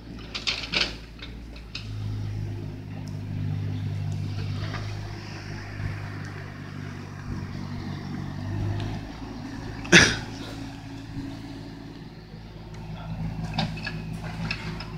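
Mini excavator's diesel engine running steadily, its note rising and easing as it works. A loud sharp bang about ten seconds in, and lighter knocks near the start and the end.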